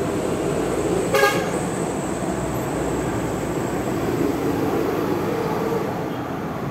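A short horn toot about a second in, over steady wind and road noise.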